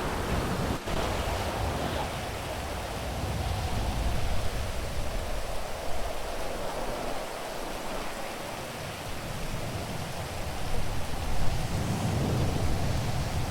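Steady rain falling, with a low rumble of thunder that swells near the end.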